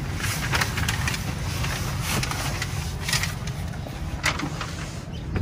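A Tesla's driver's door being opened and someone climbing out: rustling, small clicks and knocks over a steady low rumble.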